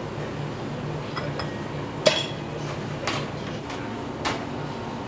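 Kitchenware clinking: four short sharp clinks of dishes or utensils, the loudest about two seconds in, over a steady low hum.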